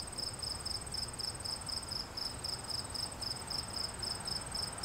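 Crickets chirping steadily: a high pulsed chirp repeating about five times a second, with a fainter, higher, rapid trill behind it.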